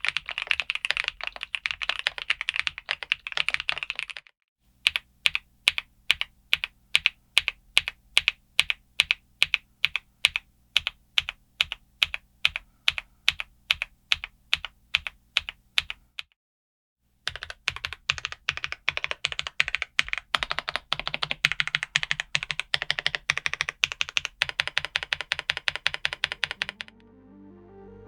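Skyloong GK104 Pro V4.0 full-size mechanical keyboard with KTT Rose Brown tactile switches being typed on: a run of fast typing, then single keystrokes at an even pace of about three a second, a brief pause, and fast typing again. Music fades in near the end.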